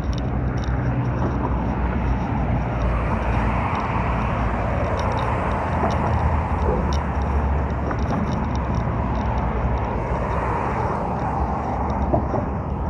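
Road traffic on the adjacent road: a steady rush of passing cars, swelling as vehicles go by.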